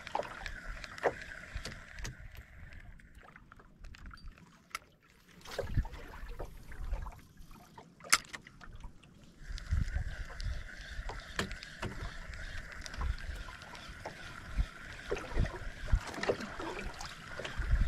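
Sounds of fishing from a small boat: scattered clicks and knocks, sharpest about eight seconds in, over low thumps. A steady high hum drops out for several seconds early on and returns at about nine seconds.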